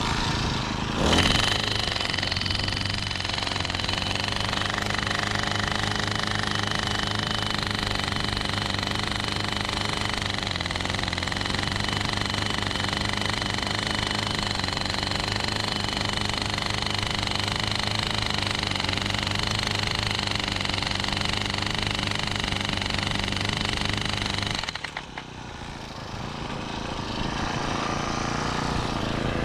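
Rhino gas-powered post driver running under load, its small engine hammering rapidly as it drives a galvanized steel pipe piling into the lake bed. About 25 seconds in it drops back for a couple of seconds, then picks up again.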